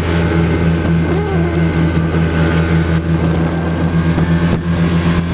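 Snowmobile engine running at a steady cruising speed, giving a constant low drone.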